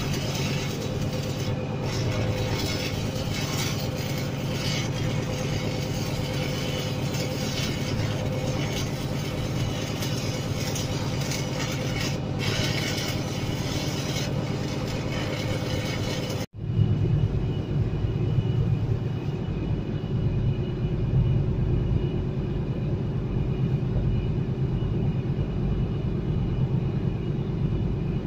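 Steady engine drone of the boat the recording is made from, with a brief dropout about two-thirds through, after which the drone sits lower and heavier.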